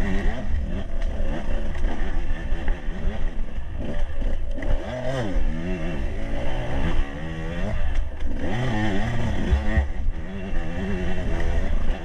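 Enduro dirt bike engine revving up and down several times as the rider accelerates and eases off.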